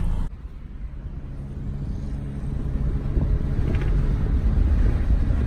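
Low rumble of a car driving, growing louder over the first few seconds as it picks up speed.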